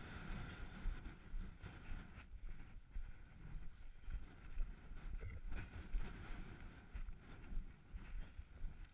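Wind buffeting the microphone in gusts, over the rumble and rattle of a mountain bike rolling down a loose, rocky track.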